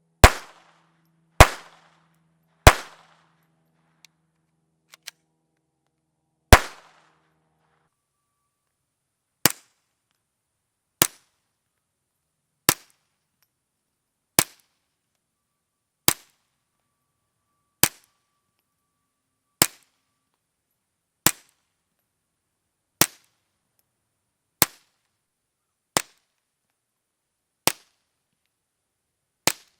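Suppressed gunshots from a firearm fitted with a Rugged Suppressors Obsidian 45. Four loud shots with short ringing tails come in the first seven seconds. A steady string of shorter, quieter shots follows, about one every second and three-quarters.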